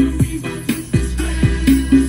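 Electronic dance remix played through a GMC 897L speaker, with a heavy kick drum about twice a second, each hit dropping in pitch, over deep sustained bass.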